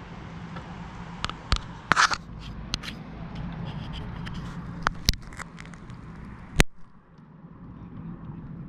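Close handling noises from unhooking a bream that has swallowed the hook: scraping and rustling, with several sharp clicks and knocks, the loudest two about five and six and a half seconds in. A low steady background rumble cuts off abruptly near the end.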